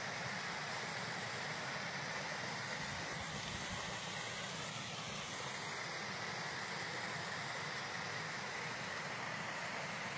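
A small rain-fed stream rushing steadily over rocks in a normally dry gully, an even splashing hiss with no breaks.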